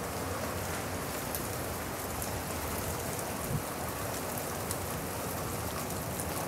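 Steady rain falling on shrubs and grass, with scattered drops ticking close by.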